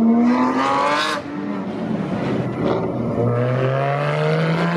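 A sports car's engine accelerating hard away from the meet. Its revs climb, break off about a second in with a brief dip, then climb again from a lower pitch, as when it shifts up a gear.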